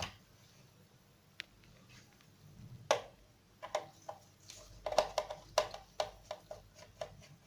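Small screwdriver turning the battery-cover screw on the back of a plastic clamp meter: a string of light, irregular clicks and ticks, starting about three seconds in.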